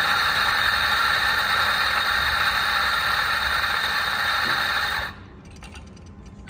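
BG64T3 electric coffee grinder running steadily with a loud whirring hiss and a faint high whine, then switching off and stopping suddenly about five seconds in.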